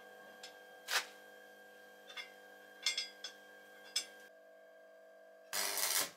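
A few sharp metallic clicks and knocks from the steel frame of a homemade table saw being handled, the loudest about a second in. Near the end, a short burst of arc-welding crackle on the frame.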